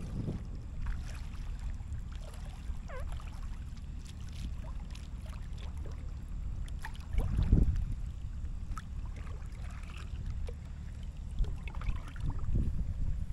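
Kayak paddle strokes in calm water: small splashes and drips over a low rumble of light wind on the microphone, with one louder low thump about halfway through.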